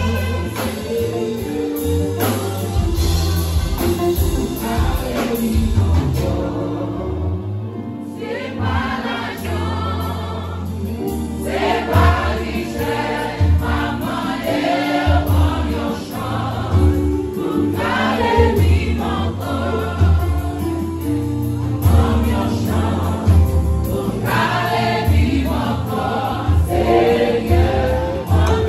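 Live gospel music: a small vocal group singing in harmony over a keyboard-led band with a heavy bass.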